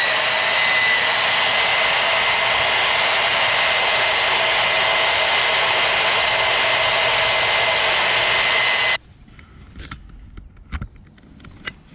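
Electric belt sander running steadily while grinding a tooling-board canopy plug, a loud hiss with a high, even whine. It cuts off suddenly about nine seconds in, leaving a few light knocks.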